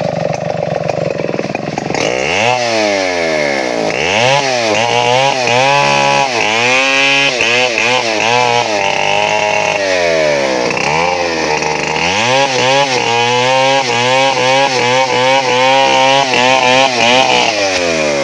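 Stihl 070 two-stroke chainsaw running steadily, then revving up and down over and over as it cuts through a felled coconut palm trunk.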